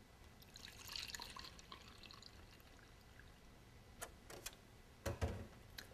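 Faint liquid splashing for about a second and a half, then several light knocks and taps as drink containers are handled.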